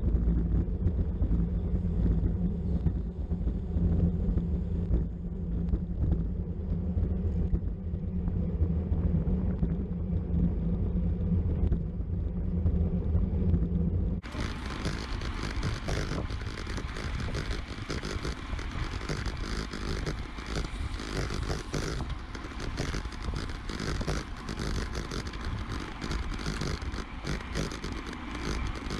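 Wind rushing over the microphone of a camera riding along with a cyclist in a race, a heavy low rumble at first. About halfway through it changes suddenly to a thinner, hissier rush.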